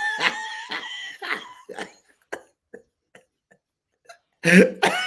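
Men laughing, in quick breathy pulses that die away over the first two seconds; a few faint clicks follow, and loud laughter breaks out again near the end.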